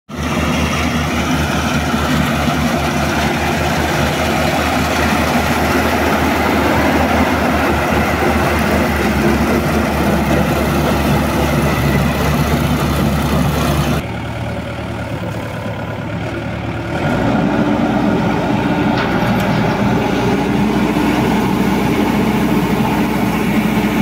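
BanglaMark Marksan BM-608 head-feeding combine harvester running while it cuts rice: a loud, steady drone of engine and machinery with a fast, even pulse underneath. About halfway through the sound drops suddenly and turns duller, and a few seconds later a steady hum with a held tone sets in.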